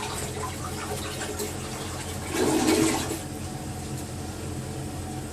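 A man sneezes once, a short loud burst about two and a half seconds in, over a steady background hum and rush.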